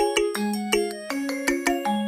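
Background music: a light, bouncy tune of plucked or struck bell-like notes over a steady beat.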